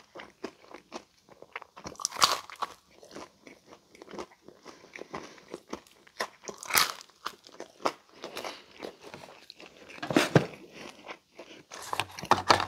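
Close-miked chewing and crunching of a Pizza Hut Meat Lover's Melt, a crisp thin-crust folded pizza. Wet chewing clicks run throughout, with louder crunchy bites about two, seven and ten seconds in.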